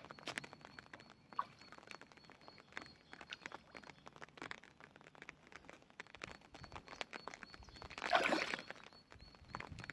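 Carp sucking floating bread off the water's surface: a scatter of small slurping clicks and smacks. About eight seconds in, one takes the bread with a louder swirling splash.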